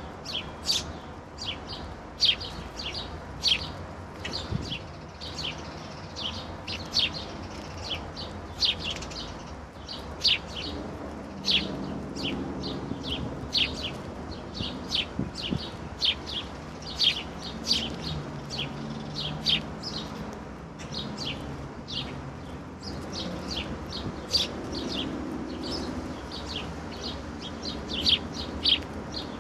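Songbirds chirping: a steady stream of short, sharp, high chirps, often several a second.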